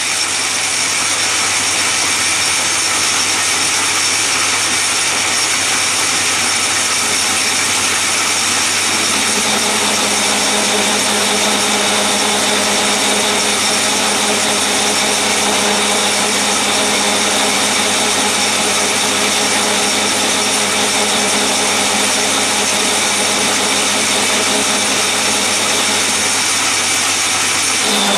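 Atlas 10 metal lathe running steadily, turning a thick bar down to diameter: a steady machine whine of several tones over a hiss. A lower steady tone joins about nine seconds in.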